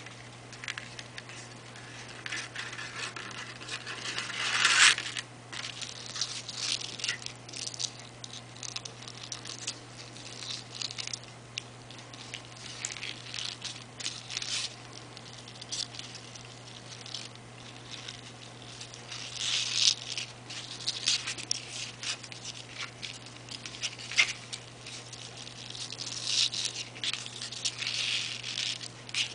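Sheer ribbon being threaded through the holes of a scalloped cardstock card: irregular rustling and scraping of ribbon and paper as the hands pull it through, louder in a few spells, over a steady low hum.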